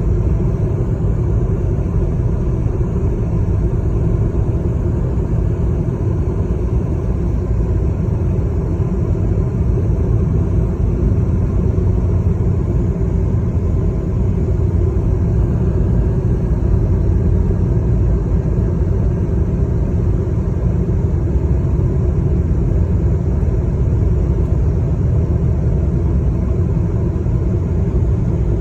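Steady low rumble of a moving road vehicle, even throughout with no change in pace.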